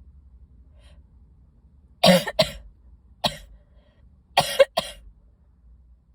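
A woman coughing in short bursts: two coughs about two seconds in, one a second later, then three in quick succession near the end. The coughs come from a tickle in her throat and chest.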